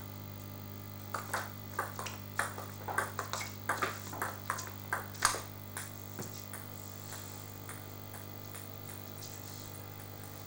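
Table tennis rally: the celluloid ball clicking off bats and table, about three or four sharp pings a second, stopping about six seconds in. A few fainter ticks follow.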